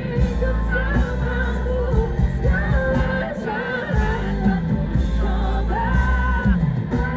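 Live pop song: a woman's amplified lead vocal sung into a handheld microphone over the band's backing, with heavy, continuous bass.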